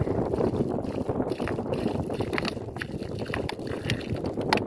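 Water pouring from an upturned plastic bottle and splashing into a spreading puddle on the sand, with irregular small splashes throughout.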